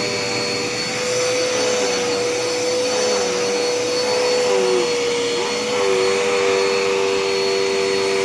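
Dirt Devil Endura Reach upright vacuum cleaner running steadily as it is pushed over the floor picking up dirt, a steady motor whine over rushing air. A lower tone in the whine wobbles and dips for a few seconds in the middle, then settles.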